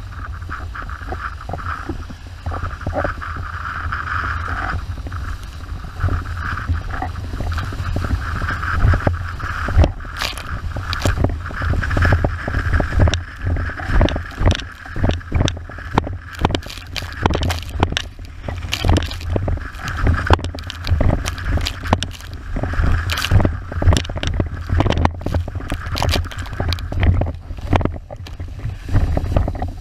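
An 81-litre wave windsurf board planing fast over chop: water rushing and spraying off the hull under a low rumble of wind buffeting the microphone. From about ten seconds in, the board slaps hard and often against the chop.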